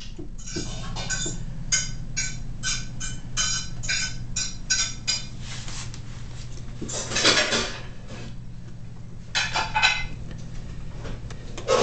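A Bernese Mountain Dog gnawing a prime rib bone: a run of quick, sharp crunches, about three a second, for the first five seconds, then two longer, louder bouts of crunching later on, over a steady low hum.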